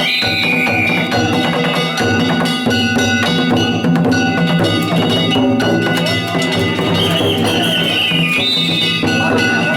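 Danjiri hayashi festival music: drums and ringing hand-struck gongs played in a fast, steady rhythm, with high wavering notes about a second long near the start and again near the end.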